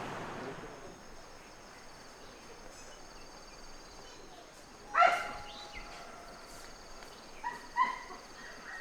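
Insects chirring in a steady, high, pulsing trill, typical of crickets. A loud pitched animal call cuts in about five seconds in, and two shorter calls follow near the end.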